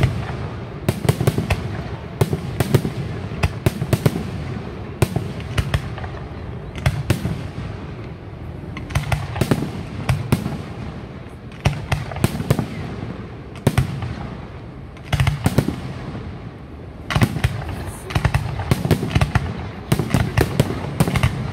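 Aerial firework shells bursting overhead in a display: volleys of sharp bangs and crackles coming in quick clusters, with short lulls of low rumble between them.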